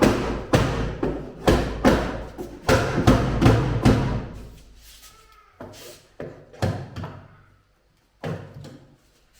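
Repeated heavy blows on a wooden shipping crate as it is being broken open, about two or three a second, thinning to a few scattered blows after about four seconds.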